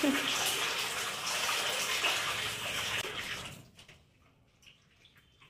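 Water running from a tap, dying away about three and a half seconds in, followed by a few faint clicks.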